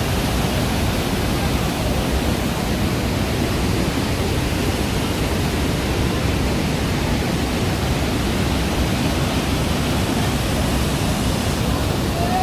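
Water of the Rhine Falls rushing down, a steady, loud wash of noise with no breaks.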